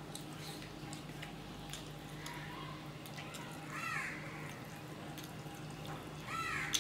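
A crow cawing, one call about four seconds in and another near the end, the loudest sounds here. Between them come small wet clicks of fingers mixing rice and dal on a steel plate, over a steady low hum.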